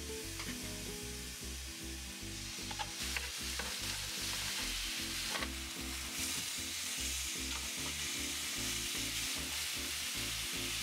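Seasoned chicken breasts sizzling on a hot ridged grill pan, with sharp clicks of metal tongs as pieces are set down and turned. The sizzle grows louder about a third of the way in and again near the middle as more chicken goes on. Background music with a steady beat plays underneath.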